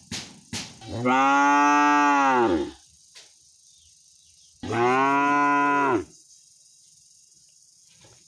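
A cow mooing twice: a long moo of about one and a half seconds that rises and falls slightly in pitch, then a shorter moo about two seconds later. A few short sharp clicks come just before the first moo.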